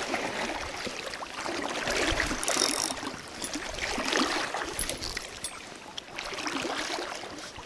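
River water flowing steadily, with scattered light clicks and rustles from the spinning reel and jacket.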